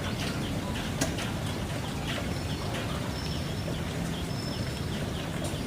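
Small birds chirping in a rapid run of short, falling chirps, with a couple of thin, high whistled notes near the middle and a single sharp click about a second in, over a steady low background rumble.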